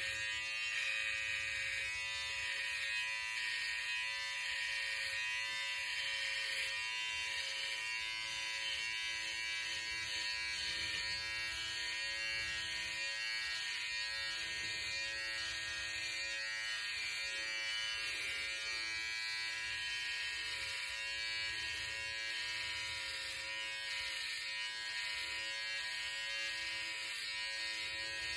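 Cordless electric hair clipper buzzing steadily as it is run over a closely cropped scalp, shaving the head.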